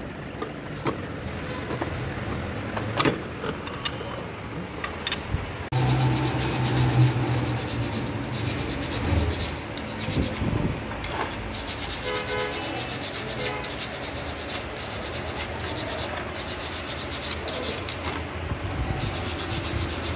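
Abrasive paper rubbed in quick back-and-forth strokes over the shoe linings of a Honda Activa's centrifugal clutch, cleaning the clutch shoes. Before this, about the first six seconds hold a few light clicks and knocks as parts are handled.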